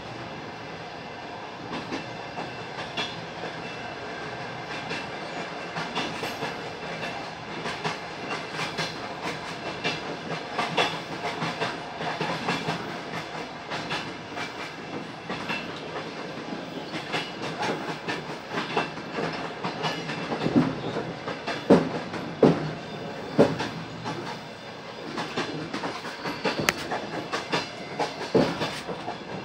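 Passenger train running along the track, a steady rumble with the wheels clattering over rail joints. The knocks come thick and fast, loudest about twenty seconds in.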